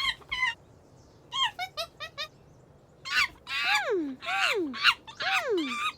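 Monkey calls: a quick run of short chattering notes, then a series of loud whooping cries, each sliding down in pitch, that sound like an animal laughing.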